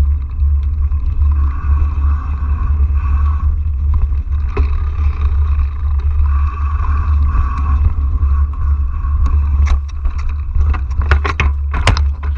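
Mountain bike rolling fast down a rough dirt trail: steady wind rumble on the microphone with rattling from the bike. From about ten seconds in, a quick run of sharp knocks and clatter as the bike crashes and the camera hits the ground.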